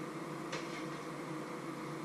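Steady hum and hiss of a small kitchen while food fries on an electric stove, with one light clink about half a second in.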